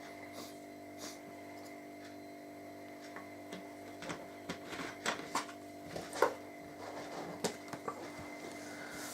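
A run of small clicks and taps from handling a solvent container while drawing up solvent, loudest a little past the middle, over a steady electrical hum.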